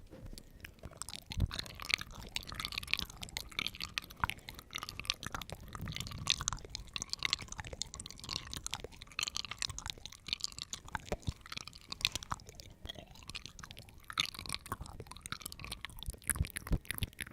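Close-up crunchy chewing of food: continuous, irregular crunches and crackles.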